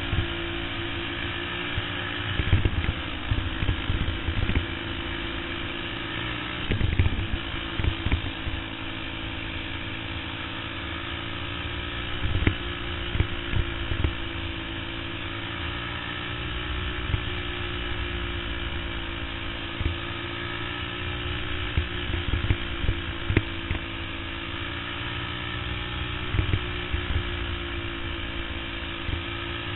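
Racing kart's engine running steadily at speed, recorded onboard, its pitch wavering a little through the turns. Irregular short thumps cut in every few seconds.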